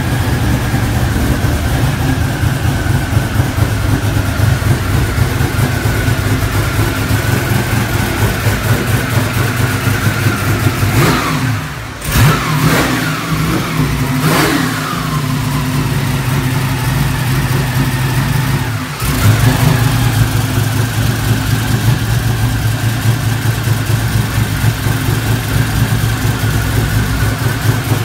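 Twin-turbo 351 Windsor V8 on a Dart Iron Eagle block with a solid-roller cam, idling in a 1989 Ford Mustang LX. It is blipped a couple of times about halfway through, the revs rising and falling, then settles back to idle.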